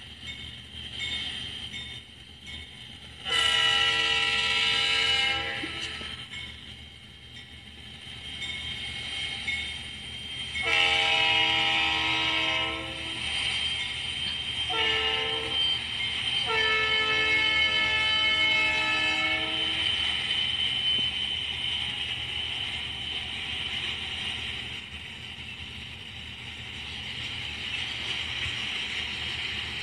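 Freight locomotive air horn sounding the grade-crossing signal: two long blasts, a short one and a final long one, each a chord of several tones. Afterwards the train rolls through the crossing with a steady noise of wheels on rails as the freight cars pass.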